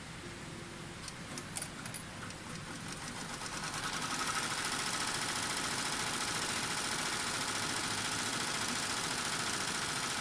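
Butterfly 15-needle embroidery machine stitching on its cylinder attachment. It is fairly quiet with a few clicks at first, then from about three seconds in it speeds up into a steady, rapid stitching chatter.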